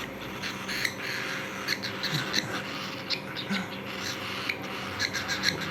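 Cockatiels eating: quick, irregular clicks and crunches of their beaks working the food, over a steady hiss.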